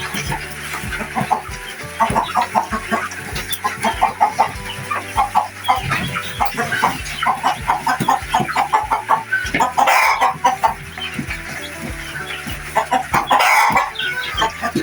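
Chickens clucking in rapid, repeated short calls, with two louder, harsher calls about ten and thirteen seconds in.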